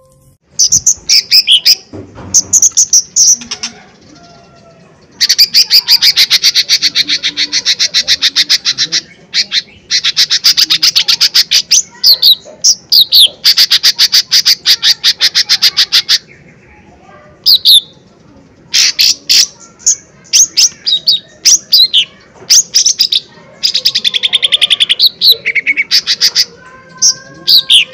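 Cucak ijo mini (a small leafbird) singing loudly: long, rapid trills of fast repeated notes lasting a few seconds each, broken by short slurred whistled phrases.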